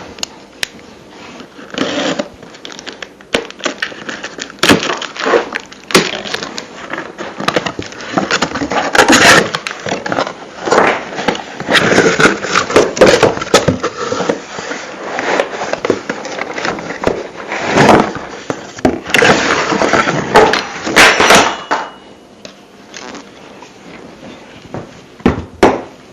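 A cardboard box being opened and unpacked: flaps pulled and torn, packaging rustling, with many sharp clicks and knocks.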